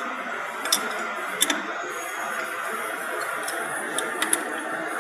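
Steel spanners clinking against a CNC router spindle and its collet nut during a manual bit change: a few sharp metallic clicks, two close together about a second and a half in and three more near the end, over a steady background hum.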